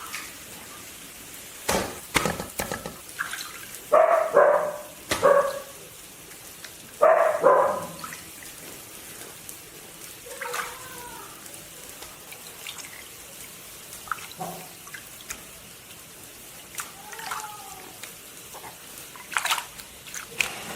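Water splashing and dripping as raw duck gizzards are rinsed by hand, with scattered clicks and knocks. A dog barks in two short bouts, about four and seven seconds in; these are the loudest sounds.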